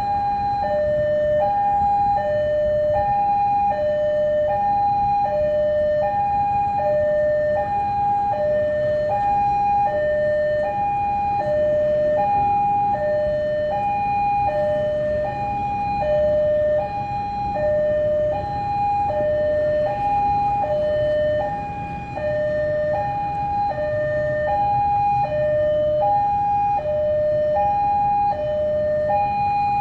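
Railway level-crossing alarm sounding continuously as a hi-lo two-tone alarm, two steady tones alternating over and over. It is the warning that a train is approaching and the road must stop. The low rumble of waiting road traffic runs underneath.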